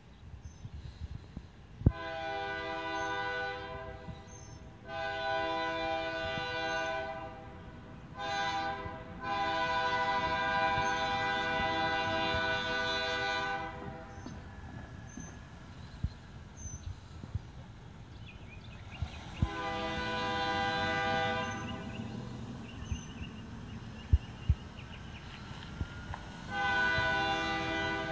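Diesel locomotive's multi-note air horn sounding the grade-crossing signal as LDRR 1504 approaches: two long blasts, a short one and a long one. Two more long blasts follow later.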